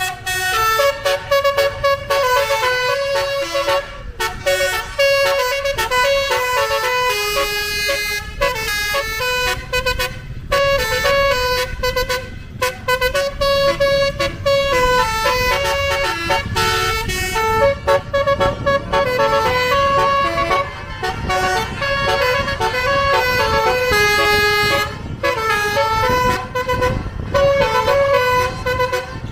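Telolet bus horn of the basuri type, a set of electric horn trumpets playing a fast melody that steps quickly between several notes, with a low rumble from the bus beneath.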